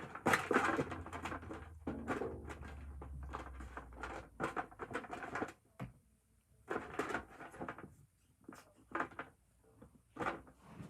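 A pile of fidget toys being rummaged through by hand: irregular bursts of clattering, knocking and rustling, busiest in the first half, then shorter handfuls with brief pauses.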